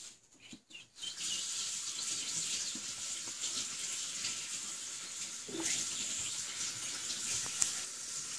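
Steady hiss of running water, starting suddenly about a second in.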